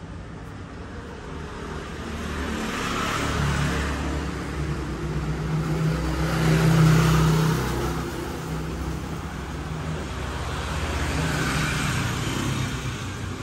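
Motor vehicles passing by, their engine noise swelling and fading three times, loudest about seven seconds in.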